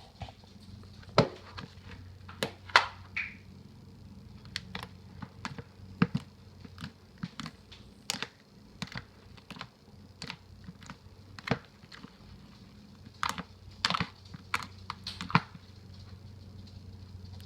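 Slime being squished and worked by hand, making irregular sticky clicks and pops, a few of them sharper and louder, over a steady low hum.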